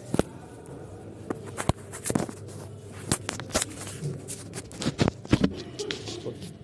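Handling noise from the recording phone: irregular knocks and bumps over a rubbing rustle as the phone is moved about against clothing.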